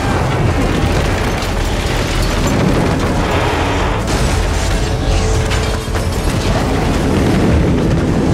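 Film sound effect of a tornado: loud, dense wind with a deep low rumble, with a few sharp knocks of flying debris.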